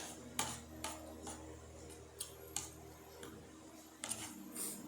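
Sharp, irregular knocks and clicks of kitchen utensils, about one or two a second, during preparation of papaya salad, over a low steady hum.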